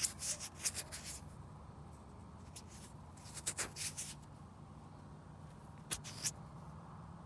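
Hand handling noise: fingers rubbing and brushing close to the microphone, in short scratchy rustles that come in three clusters, at the start, about halfway and about six seconds in, over a low steady hum.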